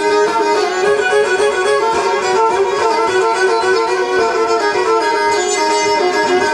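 Black Sea kemençe bowed in an instrumental passage, a quick run of notes over a steady lower note.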